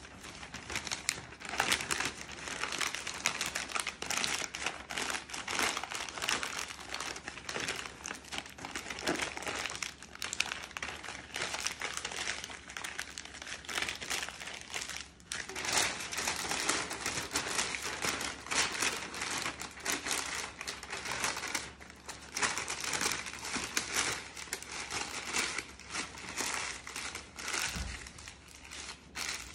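Sheets of newspaper being crumpled and twisted by hand: a continuous crackling rustle full of sharp crinkles.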